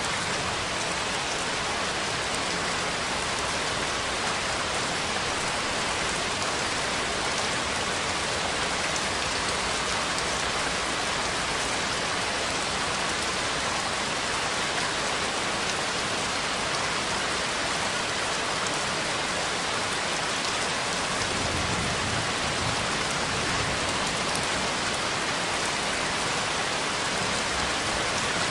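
Steady, continuous rain falling on a surface, an even hiss of countless drops with no break.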